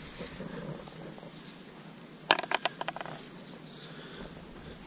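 A steady, high-pitched insect chorus from the summer vegetation. About two seconds in comes one sharp click, followed by a quick run of smaller clicks.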